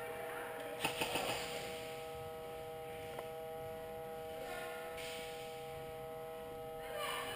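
Steady electrical hum of several high, even tones, with a quick run of sharp clicks about a second in and brief hissy rustles near the middle and the end.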